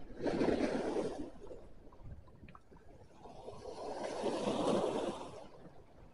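Small sea waves washing in over a rocky shore: two surges of rushing, foaming water, one just after the start and a longer one about halfway through, with a few faint ticks in the lull between them.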